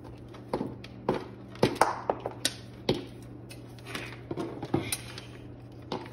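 Irregular plastic knocks and clicks, about a dozen, from handling a floor fan and its power cord, over a steady low hum.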